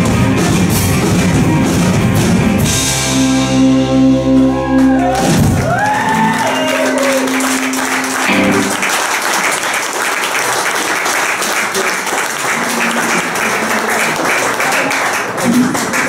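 Rock band ending a song live: final chords ring out while an electric guitar bends notes up and down, the bass and drums dropping out about halfway through. Audience applause then fills the rest.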